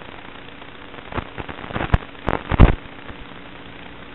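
Steady static hiss with irregular crackles and pops, about five of them, the loudest a little past the middle. This is typical of an analog FPV video link's audio channel.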